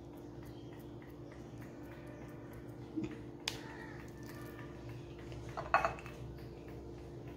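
Quiet steady hum with two light clicks around three seconds in and a brief animal call near six seconds.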